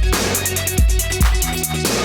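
Background music with a heavy electronic beat: deep bass hits about two to three times a second under pitched synth notes and crisp high percussion.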